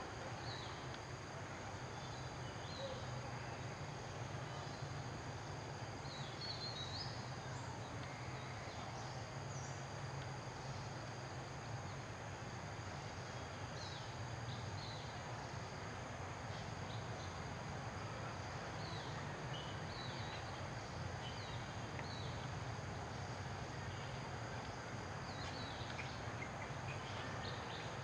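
Forest ambience: a steady high-pitched drone of insects, with short bird chirps scattered throughout and a low steady hum underneath.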